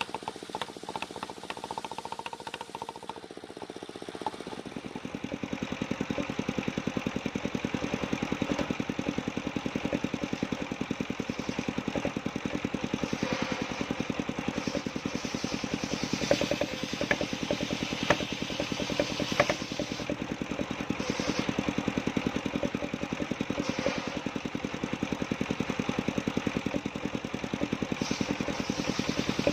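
Engine of a mobile circular sawmill running with a steady, rapid pulse, getting louder about four seconds in and staying level after that.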